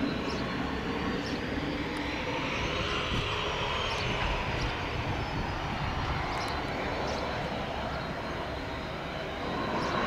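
Cessna 525A CitationJet CJ2's twin Williams FJ44 turbofans running at taxi power: a steady jet rush with a high whine that rises and then falls in pitch about three to four seconds in.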